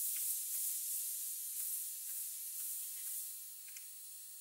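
Compressed air hissing out of the end of a thin 3.5 mm silicone (polysiloxane) hose, with a few faint ticks as the hose whips about. The hiss fades steadily as the flow dies down and the hose settles to rest.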